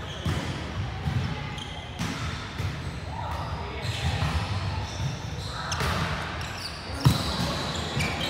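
A volleyball thudding off hands and the wooden court floor, echoing in a large sports hall, in several short knocks. The sharpest and loudest hit comes about seven seconds in.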